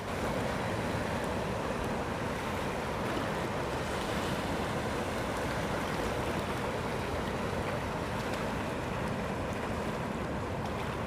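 Rough sea surf and strong wind, a steady rushing noise with the wind buffeting the microphone.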